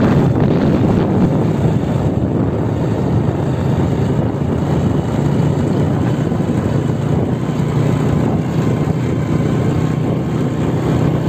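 Small motorcycle engine running steadily under way, with wind rushing over the microphone.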